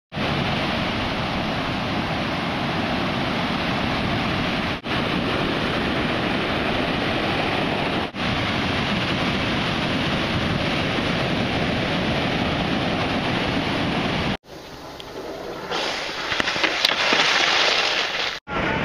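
Steady rush of breaking surf and wind on the microphone, broken by two brief dips. Near the end it gives way to a louder scraping rush: a skateboard rider sliding on asphalt with a gloved hand dragging on the road.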